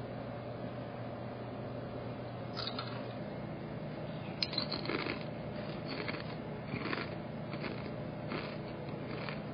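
Steady low hum with a scatter of faint crunches and rustles, and one sharp click about four and a half seconds in.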